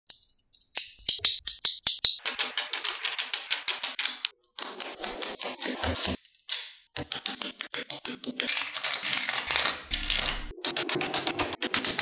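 Small magnetic balls clicking and clattering as they snap together and are pressed into place, in rapid runs of sharp clicks, several a second, broken by a few brief pauses.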